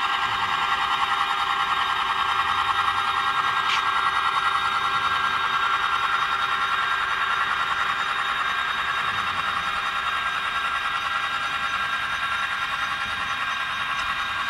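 Model diesel locomotive's sound decoder (Soundtraxx Tsunami) playing a diesel engine running at low power, a steady buzzy drone through the loco's small speaker. It eases slightly toward the end, and a couple of faint clicks sound over it.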